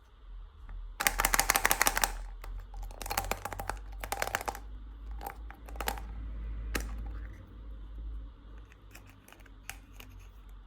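Packaging being handled and torn open: two dense bursts of crackling tearing, then scattered clicks and rustles.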